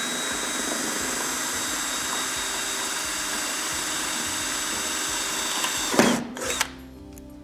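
Cordless drill boring a hole through aluminium sheet, running steadily at full speed with a thin high whine over the cutting noise. It stops about six seconds in, and a short burst of the drill follows.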